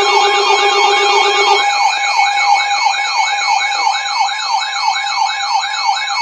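Electronic emergency alert siren tone, a warble rising and falling about four times a second over steady electronic tones. A low steady tone drops out about one and a half seconds in.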